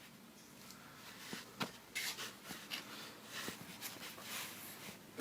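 Faint handling noise on a microwave: a few scattered light clicks and soft rustles, as plastic and metal parts are handled.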